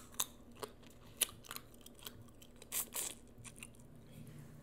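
Boiled crawfish being eaten close to the microphone: shells cracking and crunching, with chewing, in a series of scattered sharp clicks and a longer crackling noise about three seconds in.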